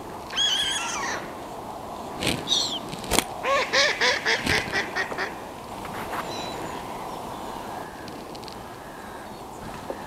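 Waterfowl on the lake calling: a call about half a second in, a higher call near two and a half seconds, then a quick run of about nine calls. A single sharp knock comes just after three seconds.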